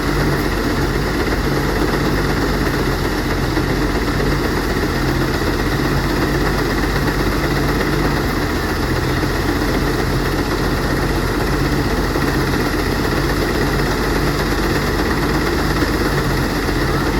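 Engine-driven rice threshing machine running steadily.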